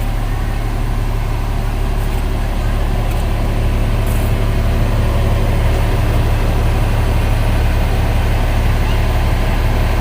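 Diesel engine of a 25-ton XCMG truck crane running steadily, a little louder from about four seconds in, with a brief hiss about four seconds in.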